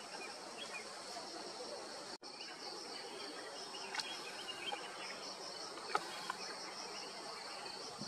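Steady high-pitched insect chorus with a slight pulsing, over a soft outdoor background. A few faint brief clicks or snaps come in the middle, and the sound drops out for an instant about two seconds in.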